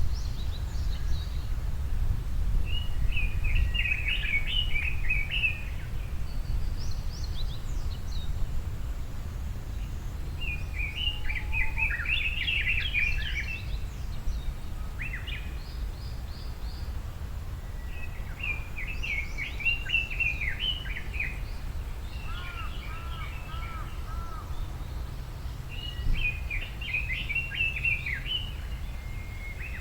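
Songbird singing: jumbled, warbling phrases about three seconds long, repeated roughly every seven seconds, with a few other short bird calls between them. A steady low rumble of outdoor background noise runs underneath.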